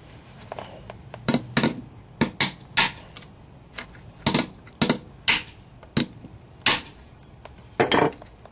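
Hammer whacking a socket set on a valve on a small-block Chevy 350's cylinder head to knock the valve spring loose. About fifteen sharp metallic blows come at an uneven pace, several in quick pairs.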